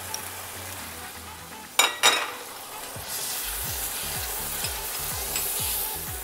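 Onion, tomato and yogurt masala sizzling in hot ghee in a steel pot as a wooden spoon stirs it. Two sharp knocks about two seconds in; from about three seconds the sizzle grows louder and the stirring strokes come about twice a second.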